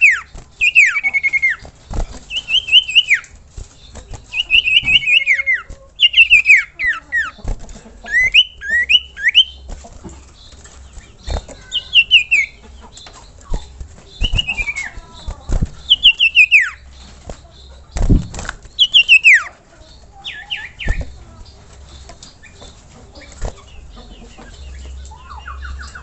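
Common iora (cipoh, sirtu) singing: repeated short phrases of quick, descending whistled notes, a phrase every second or two, thinning out after about 20 seconds. A few sharp low thumps sound between the phrases.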